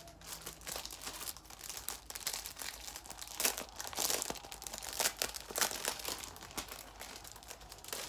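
Clear plastic packaging of a letter banner crinkling as it is handled and opened, in irregular crackles and rustles that are loudest in the middle.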